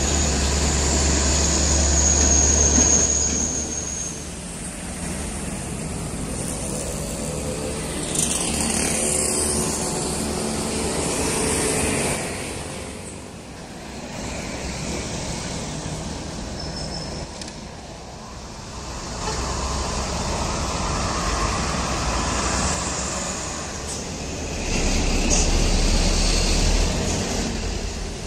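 Diesel trucks passing one after another, among them Mitsubishi Canter light trucks and a tractor-trailer. Engine and tyre noise swells and fades as each goes by, loudest near the start, midway through and again near the end.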